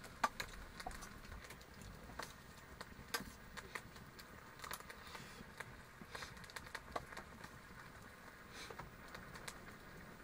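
Quiet eating sounds: a spoon clicking and scraping against a steel plate of rice, a scattering of short sharp clicks at irregular intervals.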